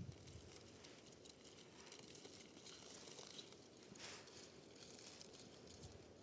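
Near silence: faint outdoor background, with a soft rustle about four seconds in.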